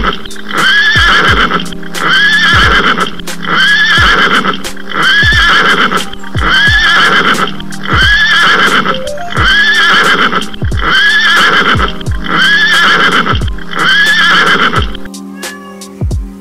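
A horse's neigh repeated over and over in time with a music track's kick-drum beat, about every second and a half, identical each time; it stops about 15 seconds in.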